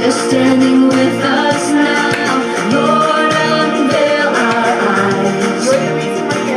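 Contemporary worship song playing: singing over a full band, with a steady drum beat.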